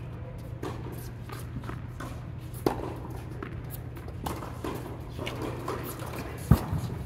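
Tennis balls struck by rackets and bouncing on an indoor hard court: a scattered series of sharp pops over a steady low hum. A heavy thump close by, about six and a half seconds in, is the loudest sound.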